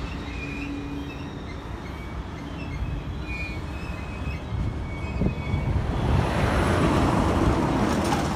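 Freight train of autorack cars rolling past: steady rumble of steel wheels on rail with short high squeals from the wheels, growing louder over the last few seconds.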